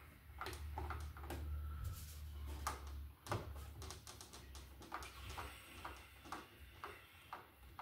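Screwdriver turning a screw on a wall switch seated in its electrical box: a run of small, irregular clicks and scrapes of metal on metal, over a low hum.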